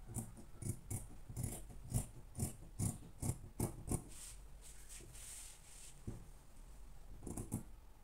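Dressmaking scissors cutting through fabric, a quick run of snips, about three a second, for the first half, then a pause and two more snips near the end.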